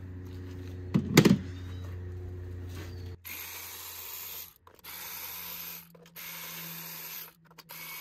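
Metal hand tools working on the spark plugs in an engine bay: one loud metallic clank about a second in, over a steady low hum. After about three seconds the sound jumps through several abrupt cuts, with a steady hiss between them.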